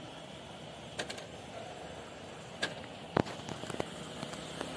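A few sharp knocks and clicks as fruit is handled on a metal roadside fruit cart, the loudest about three seconds in, over a steady background hum of passing traffic.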